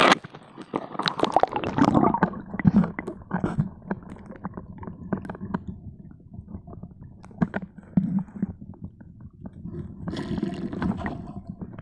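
Muffled underwater sound picked up by a phone in a waterproof pouch: water gurgling and sloshing, with irregular knocks and scrapes as a hand moves among stones on the bottom. It is busiest near the start and again near the end.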